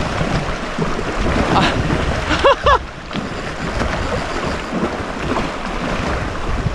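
Wind buffeting the microphone over water slapping and splashing around a kayak on choppy sea. About two and a half seconds in come two short cries that rise and fall in pitch.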